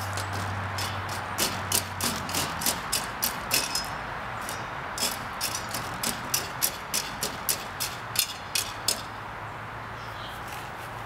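Rake scraping the dirt in short, quick strokes, a sharp scratch about three times a second. The strokes start after a second or so and stop a couple of seconds before the end, over a steady background hiss.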